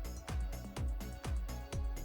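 Background electronic music with a steady beat: a deep kick drum about twice a second, with hi-hat ticks between.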